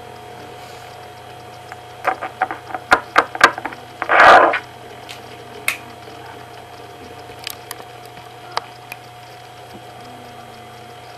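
E-cigarette being vaped: an irregular run of sharp clicks and crackles over about a second and a half, then a short loud rush of breath, the exhale, followed by a few stray clicks. A faint steady hum runs underneath.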